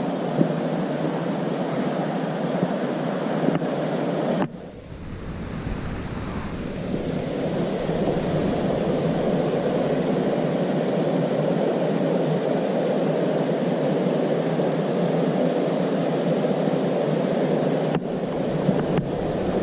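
Mountain stream rushing steadily over rocks. About four and a half seconds in the sound drops off suddenly, then builds back over the next couple of seconds.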